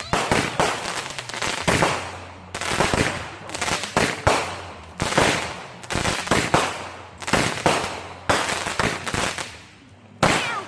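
Consumer fireworks going off: a string of loud, sharp bangs at uneven intervals of about half a second to a second, each trailing off, with a short lull near the end before one more bang.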